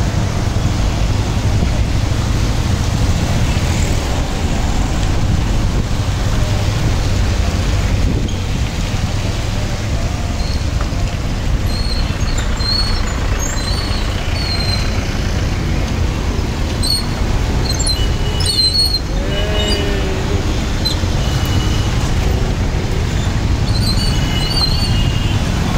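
Road traffic heard from a moving motorcycle on a wet road: a steady low rumble of engine, tyre and wind noise, with a few short high-pitched beeps from about halfway through.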